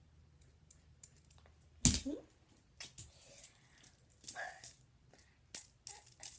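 Close handling noise of plastic fidget toys: a sharp loud click about two seconds in, then a scatter of shorter clicks and rustles.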